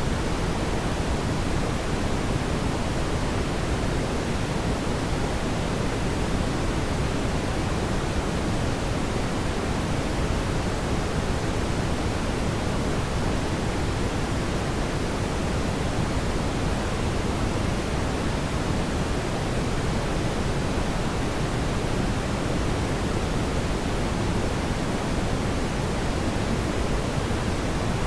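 Steady, even rushing noise from a fireplace ambience track, heavier in the low end, with no distinct crackles or pops.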